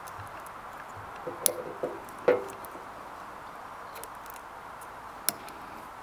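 A few sharp, short plastic clicks from push-fit lever wire connectors being flicked and snapped shut on the neutral conductors, with light wire handling, over a steady faint background hiss.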